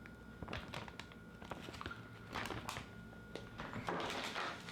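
Small parts and plastic packaging handled on a tabletop: scattered light taps and clicks, with two short bursts of plastic rustling, the longer one near the end.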